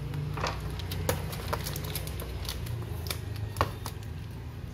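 Light clicks and taps of hands handling an Acer Aspire E1-471 laptop, with a sharper click about three and a half seconds in as the lid is shut. A steady low hum runs underneath.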